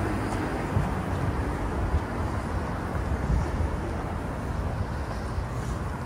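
Steady rumble of city street traffic on a busy avenue, with a few short low thumps.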